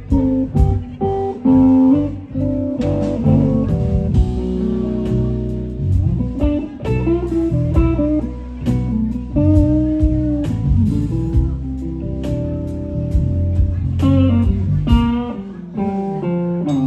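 Live blues band playing an instrumental passage: electric guitar playing melodic single-note lines with held and bent notes over bass guitar and a drum kit keeping a steady beat with cymbal strikes.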